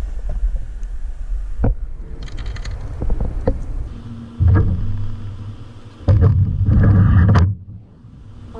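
A handheld power tool's motor running in three short trigger pulls, the middle one the longest, after a low rumble of wind on the microphone.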